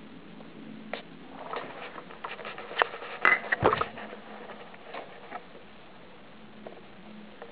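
Soft rustling, scratching and clicking for a few seconds, with a dull bump about three and a half seconds in, from a camera being handled and moved in close to a cat lying on a carpeted cat-tree base.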